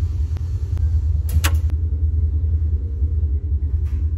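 Steady low rumble of running laundromat machines, with a short sharp clack about a second and a half in.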